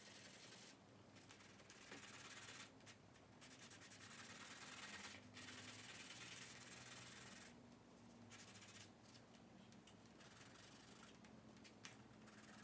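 Charcoal rubbing and scratching across sketchbook paper in faint, hissing shading strokes, each a second or two long, with short pauses between them.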